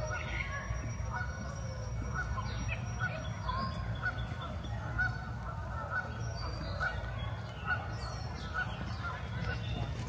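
Canada geese honking in a long run of short calls, about two a second, over a steady low rumble.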